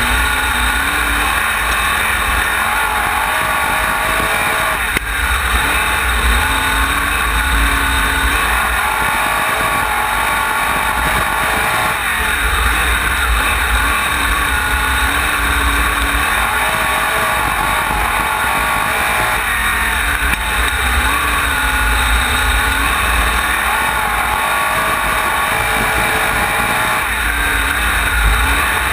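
Wingless sprint car's engine at racing speed from on board, revs climbing and dropping back over and over every few seconds as the car laps a dirt oval, with heavy wind rumble on the microphone.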